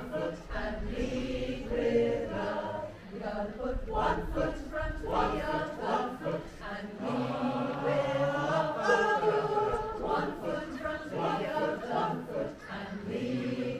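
A community choir singing, several voices together in a steady song.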